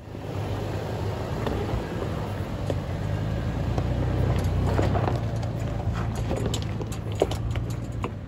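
2018 Toyota 4Runner TRD Off-Road's 4.0-litre V6 running at low revs as the truck crawls up loose rock, with stones clicking and snapping under the tyres.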